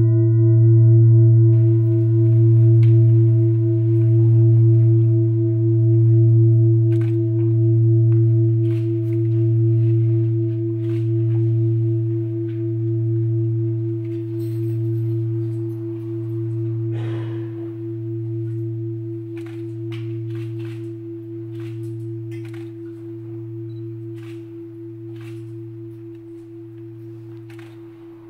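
A large singing bowl, struck once, rings with a deep hum and a higher overtone above it. Its level pulses slowly, about once every two seconds, as it fades gradually. The brighter upper overtones die away within the first couple of seconds.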